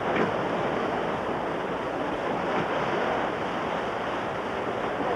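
Steady rushing noise of wind and sea waves at sea.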